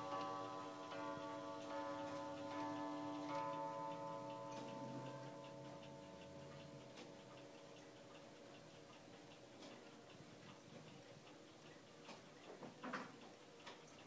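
German regulator wall clock striking the hour: the gong's ringing tones, renewed once or twice, fade away over the first few seconds. The pendulum movement's steady ticking then carries on alone, with a few louder clicks near the end.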